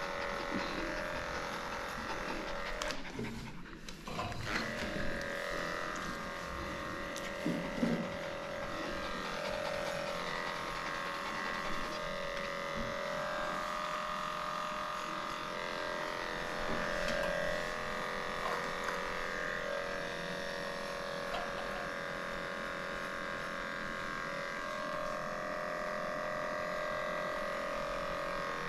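Electric dog grooming clippers running with a steady hum while shaving a matted coat. The hum drops out briefly about three seconds in.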